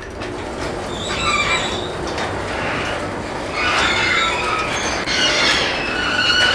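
Overhead sectional garage door closing under its opener, with a steady rolling run and squeals from the rollers in their tracks coming and going.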